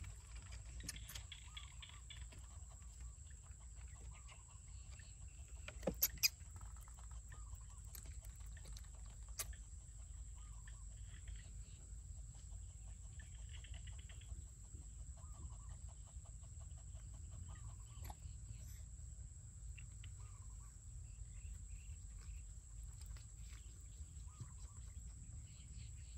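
Short animal calls, a cluck every second or two, over a steady high-pitched whine and a low rumble. A few sharp clicks about six seconds in are the loudest sounds.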